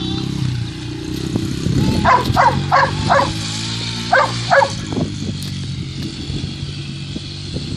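Dirt bike engine idling steadily, while a dog barks six times: four quick barks about two seconds in, then two more a second later.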